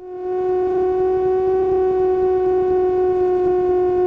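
A steady humming tone with overtones in the Cessna 150's cockpit audio. It swells in just after a click at the start, then holds at one pitch.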